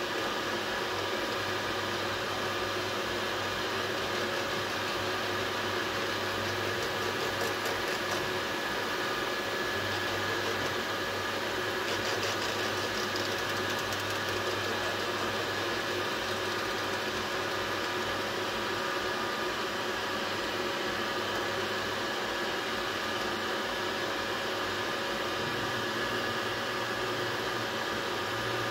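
Large dual-head 3D printer running: a steady whirr of cooling fans and stepper motors, with a low hum that shifts now and then as the print head moves.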